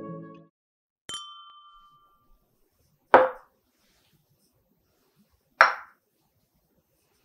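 Metal bar tools set down on a wooden cutting board: a click with a ringing metallic ping about a second in, then two sharp knocks about two and a half seconds apart, the second as a stainless steel jigger is placed on the board.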